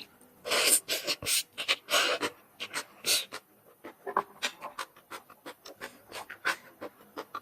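Close-miked eating sounds of rice noodles in coconut-milk curry: a quick run of loud wet slurps in the first few seconds, then quieter scattered chewing and mouth clicks.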